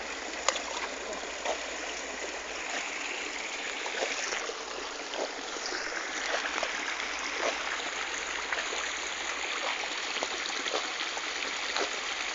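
Steady rushing of running water, with scattered small ticks.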